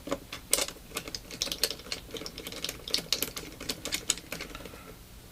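Tiny screws being driven into a Galaxy S3's plastic rear housing with a small precision screwdriver: a run of quick, irregular light clicks and ticks that stops about four and a half seconds in.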